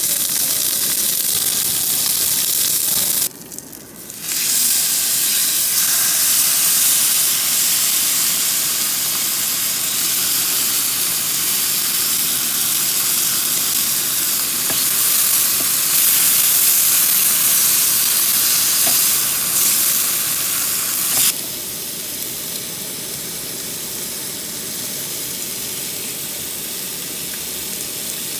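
Pork ribs sizzling on a barbecue grill: a steady hiss of fat and meat juices cooking. The sizzle drops out briefly about three seconds in and turns quieter for the last several seconds.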